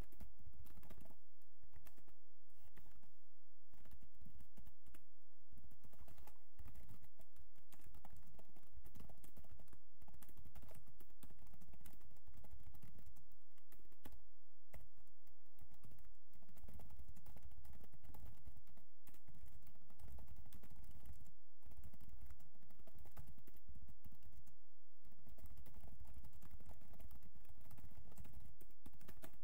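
Typing on a computer keyboard: a fast, irregular stream of key clicks with a few brief pauses.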